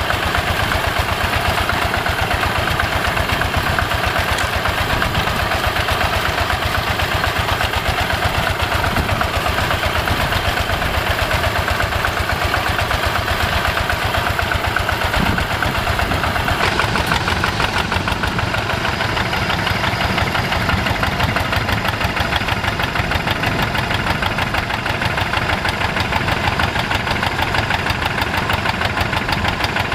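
Yanmar single-cylinder diesel engine of a two-wheel hand tractor running steadily under load while it pulls a plow through wet paddy soil, with a fast, even beat.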